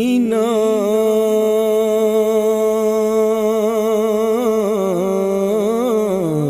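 A male naat reciter singing one long sustained note in a single voice, with small ornamental turns in the pitch near the end before it dips down.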